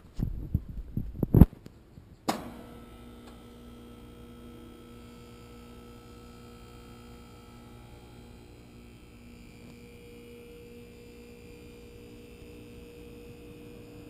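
New American Standard Platinum 20 SEER dual-compressor heat pump outdoor unit just after start-up: a sharp click a little over two seconds in, then a quiet steady hum with a few low tones. Loud low rumbling knocks in the first second and a half.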